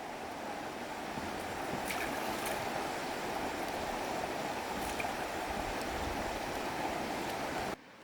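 Steady rush of flowing river water with a few faint clicks; it cuts off abruptly near the end to a quieter rush.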